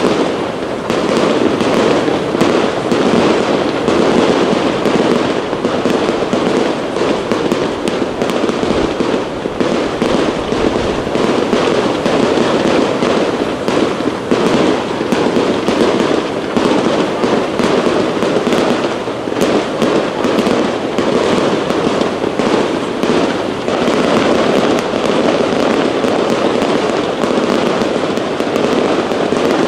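Aerial fireworks going off in a rapid, unbroken barrage: shells launching and bursting in quick succession, a dense stream of bangs and crackles with no pause.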